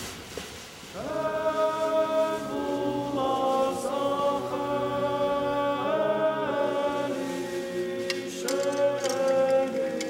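A choir singing Georgian Orthodox liturgical chant in several-part harmony. It holds long chords that change together every few seconds, beginning about a second in.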